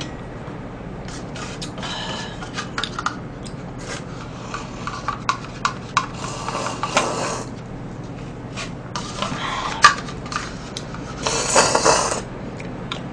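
Someone sipping and slurping cream soup from a small cup, with light clicks of a wooden spoon against the cup. There are two longer slurps, one about halfway through and one near the end.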